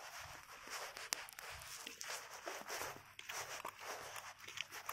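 Faint footsteps on asphalt with the light rolling and rattle of a child's push tricycle.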